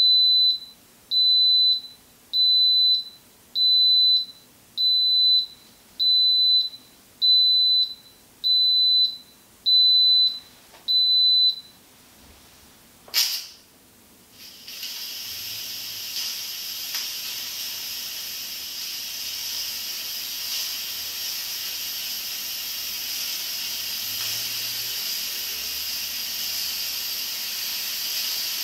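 Instant Pot electric pressure cooker beeping ten times, a steady high beep about once a second, signalling that the pressure cook has finished. Then a click as the steam release valve is turned, and a steady hiss of steam venting in a quick pressure release, growing slightly louder near the end.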